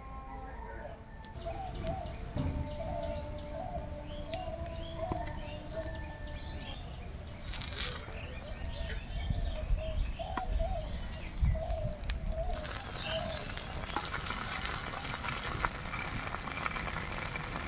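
Birds calling and chirping over and over. About two-thirds of the way in, a dense crackling sizzle comes in: fish steaks frying in hot mustard oil in a clay pan.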